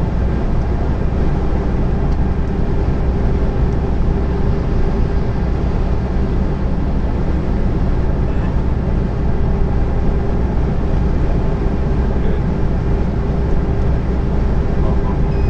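Steady drone inside a lorry cab at motorway cruising speed: the diesel engine, tyres and wind, with a steady hum running under the noise.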